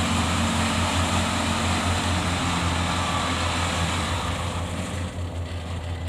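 Engine of a small tracked rice-field tractor running steadily as the tractor drives along, a constant low hum that grows a little quieter near the end.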